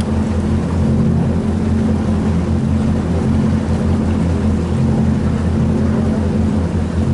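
A small passenger boat's engine running steadily, a low even drone heard on board while it cruises.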